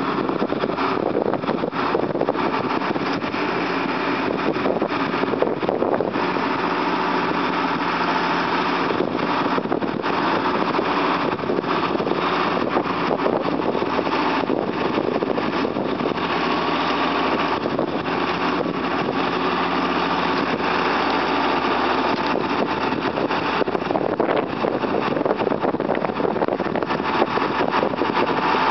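Tractor engine running steadily, driving a Luck Now 2250 feed wagon as it unloads feed into a cattle bunk. A faint steady whine sits over the engine.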